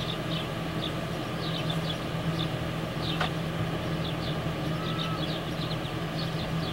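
A steady low mechanical hum like a distant engine, with small birds chirping repeatedly over it.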